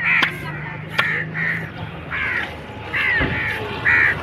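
Crows cawing over and over, short harsh calls coming several times a second. One sharp knock of the cutter's knife on the fish and wooden block comes about a second in, and a dull thump comes a little after three seconds.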